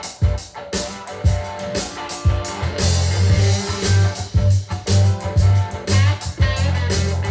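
Rock music with a steady drum beat, bass guitar and electric guitar, played back through a Canton GLE 70 loudspeaker as a sound test.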